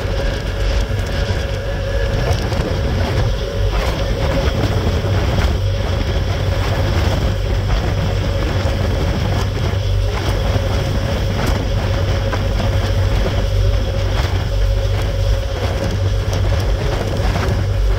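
A ferry's engines running underway, a steady low rumble with a steady hum above it. Wind buffets the microphone in irregular gusts throughout.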